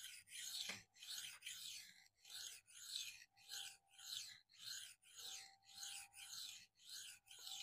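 A K110-steel knife blade being stroked freehand across a Venev Phoenix diamond sharpening stone: faint, even rasping strokes at about two a second. This is the coarse stone, evening up material removal on the second side of the edge.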